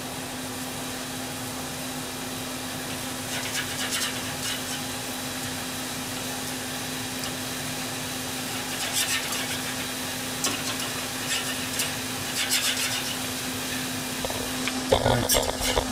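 Steady hum of a kitchen fan, with short bursts of crackling sizzle from fish grilling under a cooker's grill. A knock near the end.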